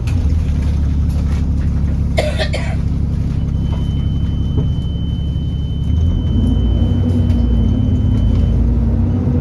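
Alexander Dennis Enviro400 double-decker bus running: a steady low engine drone, with a brief rattle about two seconds in and a thin high whine held for several seconds. About six seconds in, the engine note rises and gets a little louder.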